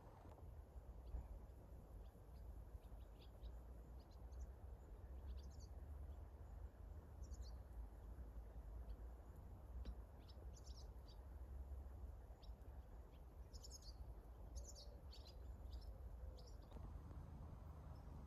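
Faint, scattered chirps of small songbirds over a steady low rumble of outdoor ambience.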